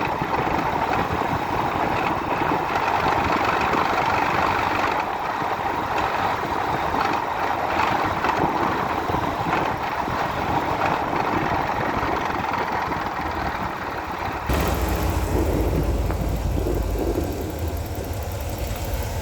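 Ford Econoline E150 van's engine and drivetrain running with a dense, irregular rattling noise, the strange sound the owner suspects comes from the torque converter or the E4OD automatic gearbox. About three-quarters of the way through, the sound changes abruptly to a deeper low hum with less rattle.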